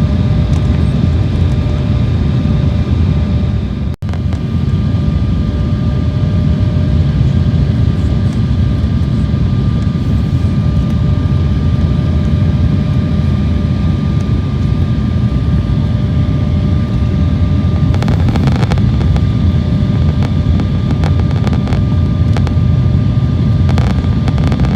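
Jet airliner cabin noise on approach: a steady low roar of engines and airflow with a constant hum in it, heard from inside the cabin. The sound drops out for an instant about four seconds in.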